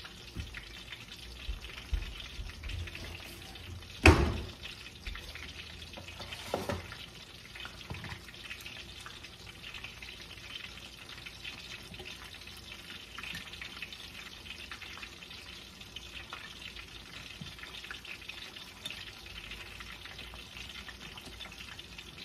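Food frying in a stainless pan on the stove, a steady sizzle, with one loud knock about four seconds in and a smaller one a couple of seconds later.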